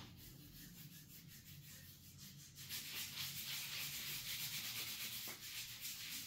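A hand rubbing and scratching a bare, hairy belly in rapid rasping strokes. It is faint at first and grows louder about two and a half seconds in.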